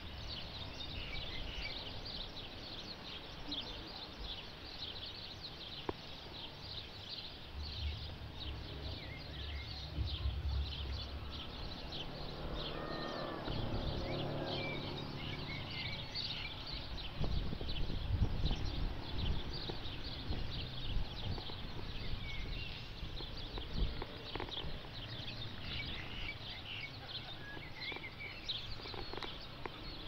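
Seaside ambience with breaking surf: small birds chirping constantly in quick, high calls over a low rumble that swells twice, about a third of the way in and again a little past the middle.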